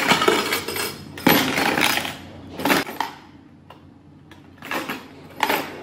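A plastic compartment lunch box with water inside is shaken in several bursts, its contents rattling and clinking. It is being shaken to test whether it is leak-proof.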